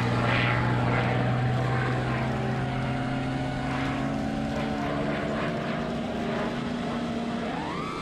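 Onboard sound of a radio-controlled model aircraft's motor and propellers: a steady hum of several pitches over a rush of air. Near the end the pitch climbs sharply as the throttle is opened.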